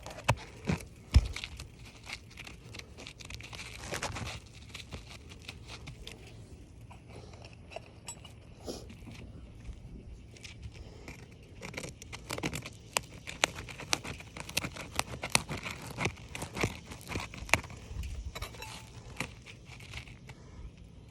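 Asphalt roofing shingles being pried loose by hand with a tool: irregular scraping, clicking and crackling as the tabs are worked up and granules pop off, with a couple of louder knocks about a second in.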